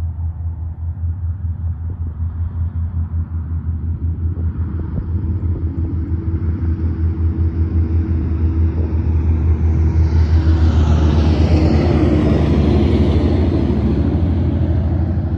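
Diesel-electric locomotives hauling a fully loaded coal train up a grade, heard approaching: a deep, evenly pulsing engine rumble that grows steadily louder, with more hiss and whine filling in from about ten seconds in.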